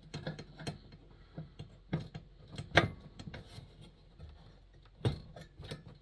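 A wrench and metal lantern parts being handled: scattered sharp metallic clicks and knocks, the loudest about three seconds in.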